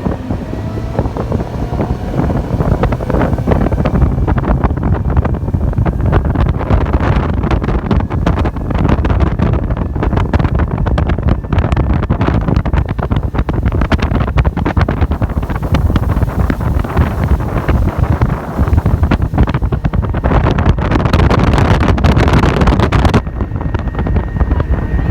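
Boat motor running at speed at around 4,000 rpm, under heavy wind buffeting on the microphone. Near the end the rushing noise cuts back sharply.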